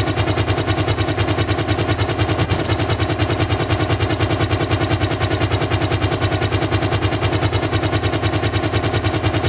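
Apache attack helicopter's rotor beating in a fast, steady rhythm.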